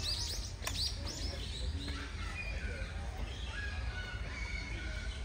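A small bird chirping in a quick series of short falling notes for about the first second, over a steady low rumble.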